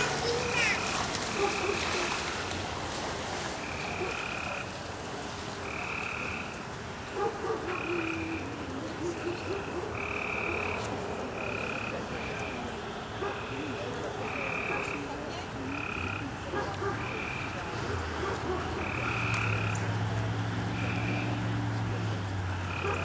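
An animal calling over and over in short, pitched notes, about one a second, over outdoor background noise; a low steady hum comes in near the end.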